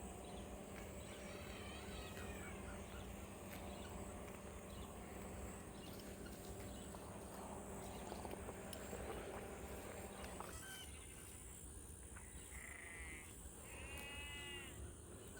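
Faint outdoor pasture ambience with a steady high-pitched drone, and two short animal calls near the end.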